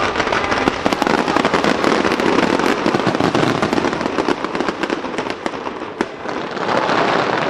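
Fireworks crackling densely: a rapid, continuous crackle of many small pops from fountains and crackling star bursts, with one sharper bang about six seconds in.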